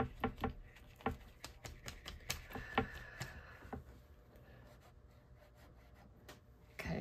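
Light, irregular clicks and taps of small objects being handled on a desk, several a second, thinning out after about four seconds into a quiet stretch.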